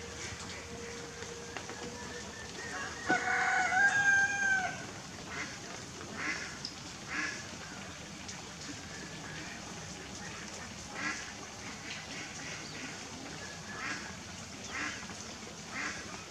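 Farmyard poultry calling: one long crow, the loudest sound, about three seconds in, then short scattered calls every second or so over a steady outdoor hiss.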